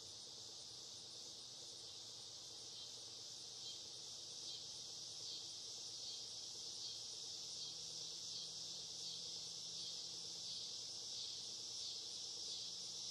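Insect chorus, a steady high-pitched trilling with a faint regular pulse. It grows slightly louder a few seconds in.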